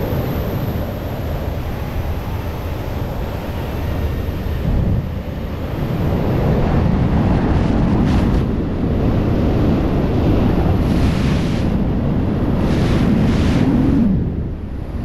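Rushing airflow buffeting a camera microphone during wingsuit flight: a loud, gusting wind roar that surges a few times and drops briefly near the end.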